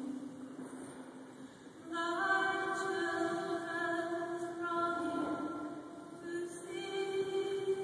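Woman cantor singing a slow solo hymn in long held notes, echoing through a large cathedral. A low note fades away, then a new phrase begins about two seconds in.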